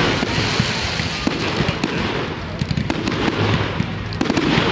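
Aerial fireworks bursting one after another: a run of sharp bangs over a steady crackle, with a louder cluster of bursts near the end.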